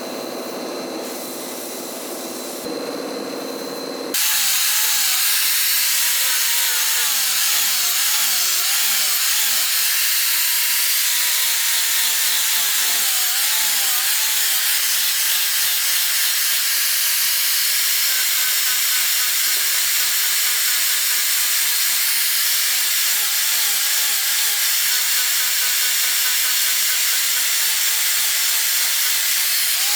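A hand-held power tool grinding or abrading metal with a loud, steady hiss. Its motor whine wavers up and down as the load changes. About four seconds in, the sound switches abruptly from a quieter rubbing sound to this louder grinding.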